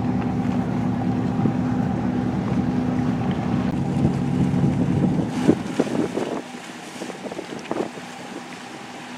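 Motorboat engine running steadily, with wind on the microphone; the engine noise drops away sharply about six seconds in, after a few short knocks.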